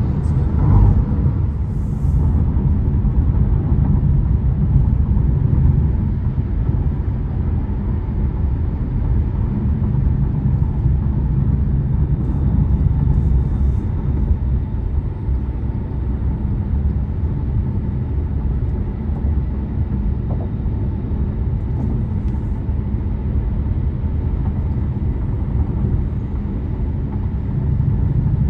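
Steady low road and tyre rumble with wind noise inside the cabin of an Ora Good Cat electric car cruising at highway speed, with no engine sound. About a second in it swells briefly as a truck passes close alongside.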